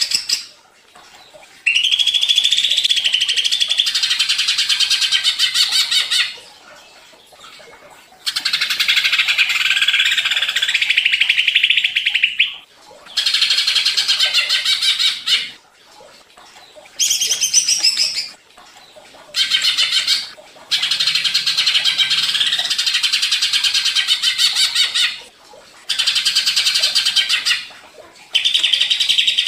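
Cucak ijo (green leafbird) singing a fast, chattering, high-pitched song in about seven phrases of two to five seconds, with short pauses between them. It is the agitated, full-voiced 'ngentrok' song.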